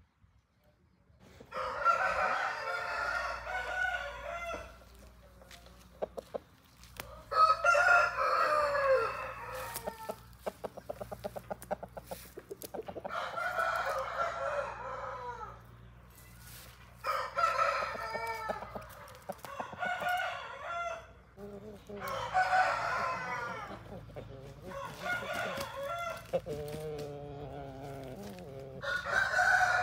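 Aseel roosters crowing again and again: about seven long crows of two to three seconds each, a few seconds apart.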